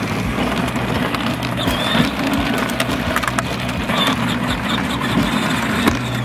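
Power Wheels Hot Wheels Racer ride-on toy car driving: its electric drive motors hum steadily while the hard plastic wheels rumble and crackle over asphalt.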